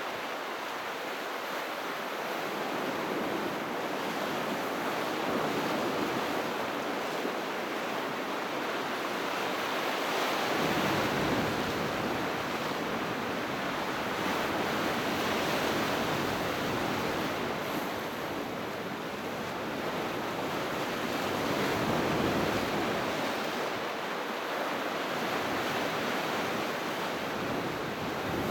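Sea waves breaking on the shore in a continuous wash of surf, swelling louder about every five to six seconds as each wave comes in.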